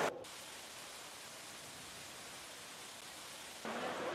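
Heavy rain falling, a steady hiss that drops sharply to a quieter level right at the start, at a cut, and grows louder again near the end.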